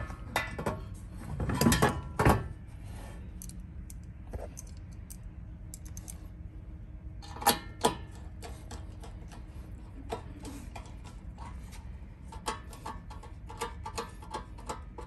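Clicks, knocks and small metallic clatter of a screwdriver and metal bracket parts on a metal display fixture as a screw is driven in and tightened. There are a few louder knocks about two seconds in and again around eight seconds, then a run of quick small clicks near the end, over a steady low hum.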